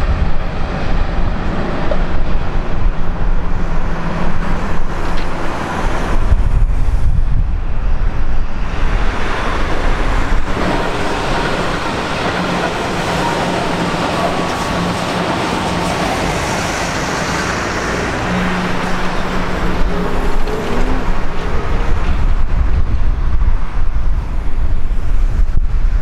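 A train running past on the tracks, a loud continuous noise with a steady low hum through it, swelling with a heavier rumble about six seconds in and again near the end.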